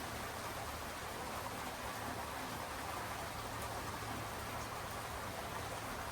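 Steady rain falling, an even hiss of drops without breaks.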